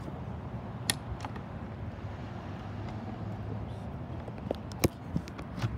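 2020 Indian Roadmaster Dark Horse's Thunder Stroke 116 V-twin idling with a steady low rumble. Sharp clicks come about a second in and again near the end.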